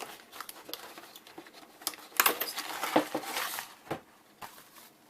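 Packaging being handled during unboxing: scattered light taps and clicks, with a louder rustle of paper or plastic starting about two seconds in and lasting about a second and a half.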